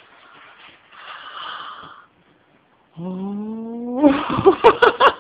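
Soft paper rustling, then about three seconds in a person's drawn-out rising 'ahh' that breaks into loud excited squealing and laughter, a reaction to opening a present.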